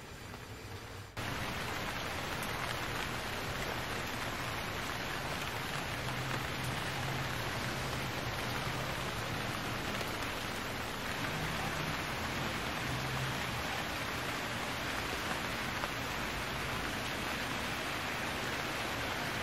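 Steady rain hiss, which jumps suddenly louder about a second in and then holds even.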